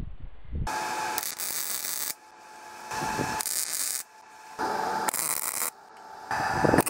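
Wire-feed welder arc crackling in about four short bursts with brief pauses, tack-welding new steel mounting tabs for the tractor's belt guard. The footage is sped up four times, which raises the pitch.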